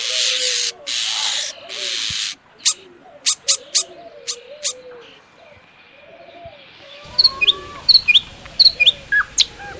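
Birds calling. It opens with three harsh, hissing screeches in the first two seconds, then a run of sharp clicks. A low cooing note repeats underneath throughout, and several quick, high, falling chirps come near the end.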